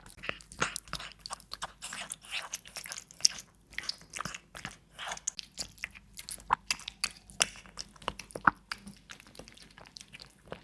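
A cat chewing and crunching its food, a quick, irregular run of crunchy bites.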